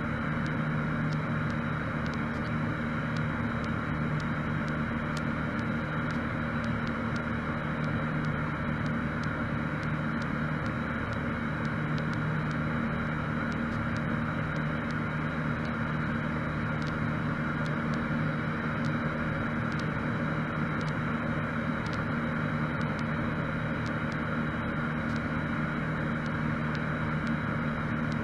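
Cessna 152's four-cylinder Lycoming O-235 engine and propeller droning steadily in flight, heard inside the cockpit.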